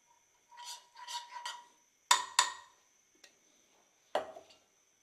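A spoon scraping ghee out in three short strokes, then two sharp taps against a nonstick frying pan, with another knock a couple of seconds later.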